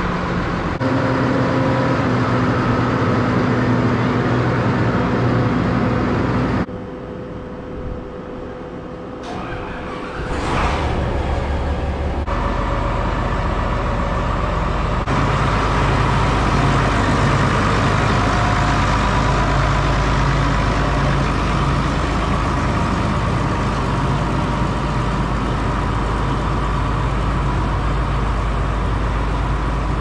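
Diesel farm tractor engines running steadily. The sound drops suddenly about seven seconds in, then from about twelve seconds a John Deere 4240's six-cylinder diesel runs louder and steady.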